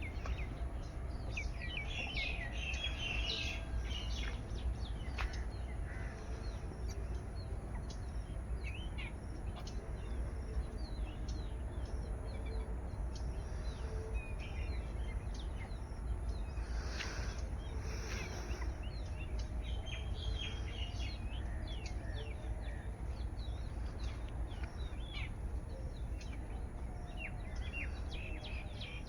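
Many small birds chirping and calling in quick short notes throughout, over a steady low rumble.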